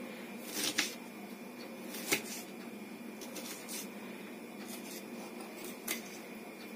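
Kitchen bowls and utensils being handled: a few light sharp clicks, a double click about a second in, another about two seconds in and one near the end, over a faint steady background hiss.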